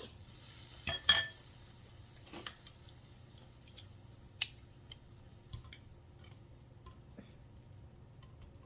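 Eating utensils clicking against dishes. There are a few sharp clicks, the loudest about a second in, with scattered lighter ticks over a faint hiss.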